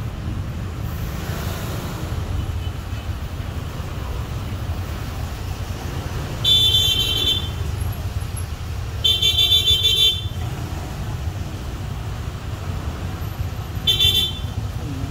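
Steady low traffic rumble with a vehicle horn honking three times: about a second long midway, again a couple of seconds later, and briefly near the end.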